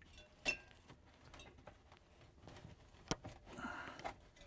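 Light handling sounds of an insulation pad being worked into an aluminium refrigerator evaporator coil: a couple of faint clicks and a short rustling scrape near the end.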